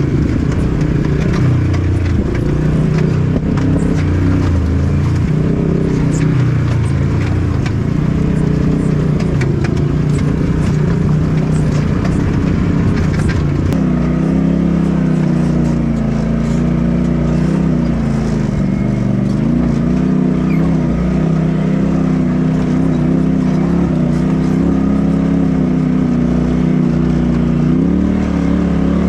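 Polaris RZR side-by-side engine heard from the cockpit, its note rising and falling with the throttle, with scattered clicks and rattles. About halfway through the sound changes to a second side-by-side's engine, running with a steadier, lower note that still rises and falls.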